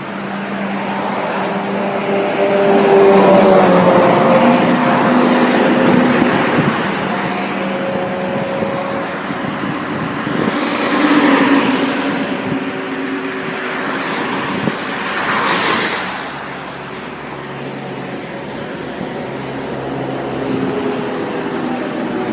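Road traffic: vehicles passing by with continuous engine and tyre noise. The loudest passes come about 3, 11 and 15 seconds in.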